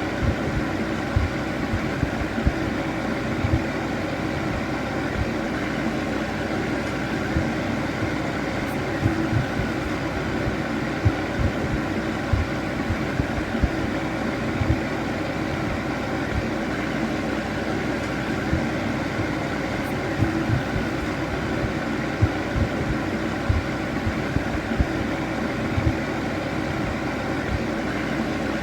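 Electric fan heater running steadily: an even whir of blown air with a constant motor hum, broken by frequent irregular low thumps.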